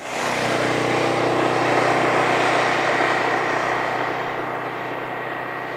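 Suzuki Burgman maxi-scooter riding past and away down the road. Its engine and tyre noise is loudest about two seconds in, then slowly fades.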